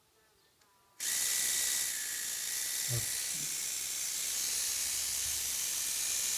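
A small battery-powered Micro Touch hair trimmer switched on about a second in, its motor and cutting head running with a steady high buzz and hiss. A brief low knock about two seconds later.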